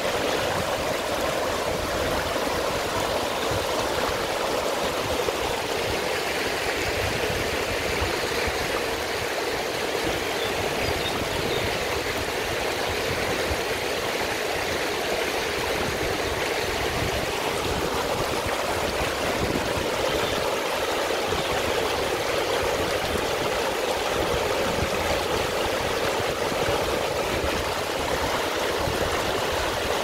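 Mountain river running fast over rocks and small rapids: a steady rush of water.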